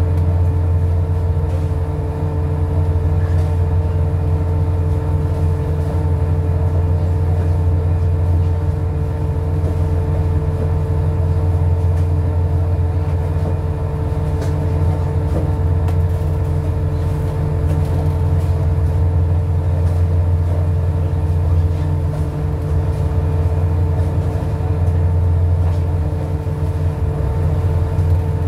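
Fishing boat's engine running steadily: a deep, constant low hum with a steady higher tone over it.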